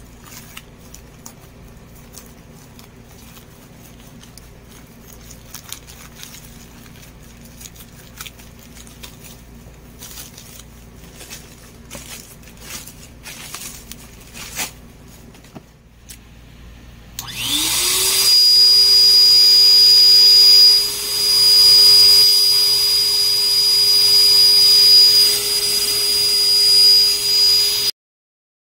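Rustling plastic mailer and scattered clicks as the package is cut open with scissors. Then an electric balloon pump is switched on: its small motor spins up with a quick rising whine and runs loudly and steadily with a high-pitched whine, until it cuts off suddenly near the end.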